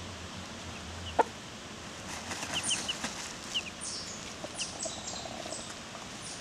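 Hens dust bathing: scratchy rustling and wing fluttering in dry dirt, with a few faint short chirps. A single sharp click comes about a second in.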